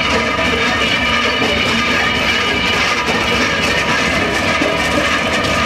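Union Pacific Centennial 6936's twin diesel engines running steadily close by, a continuous rumble with a layer of steady whining tones above it.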